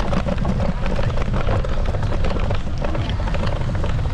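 Ride noise from a handlebar-mounted camera on an Apollo Explore electric scooter: a steady low rumble of wind and tyres, with many small rattling clicks from the bumpy surface.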